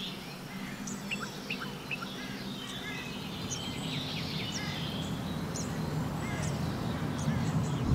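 Small birds chirping and calling, many short rising and falling notes, over a steady low hum that grows slowly louder.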